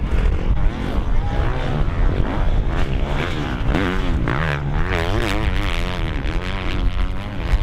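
Several motocross bike engines revving up and down as they ride through deep sand, their pitches rising and falling again and again and overlapping one another.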